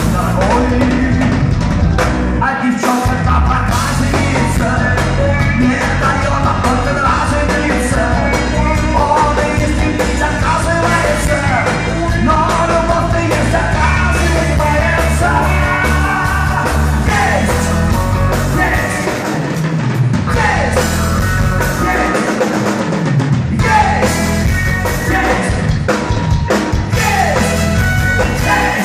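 Rock band playing live: singing over electric guitars and drums.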